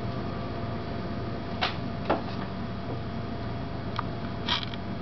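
Indoor room tone with a steady hum, broken by a few short light clicks and taps, two near the middle and two more near the end.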